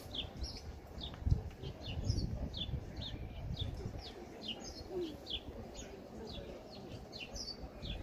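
Small birds chirping: short, high, falling chirps two or three times a second, over a low rumble.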